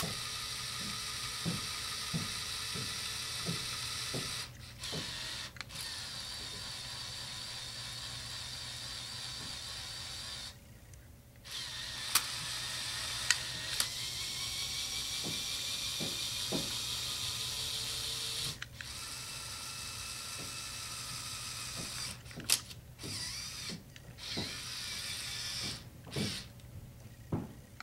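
Small electric motors and plastic gears of a Lego Technic motorized excavator whirring as the boom, arm and bucket move. The whir stops and restarts several times, more often near the end, with a few sharp clicks.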